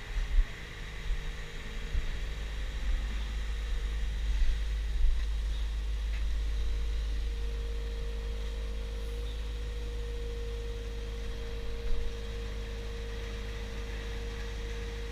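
Scania vacuum tanker's engine and vacuum pump running steadily while sucking out a septic tank. A steady whine sets in about six seconds in and holds.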